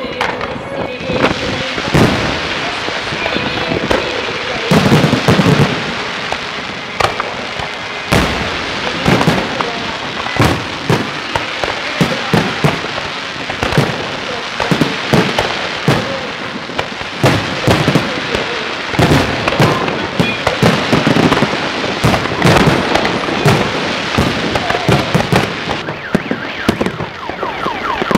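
Fireworks display: shells bursting in a rapid, irregular stream of loud bangs over continuous crackling.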